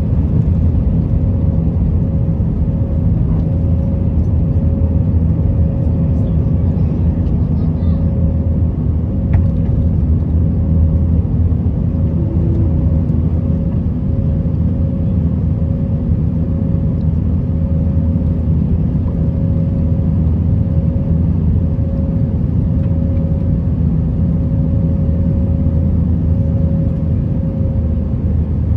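Interior cabin noise of an Airbus A320 airliner heard from a window seat: a steady low rumble of engines and cabin air, with an evenly pulsing hum above it.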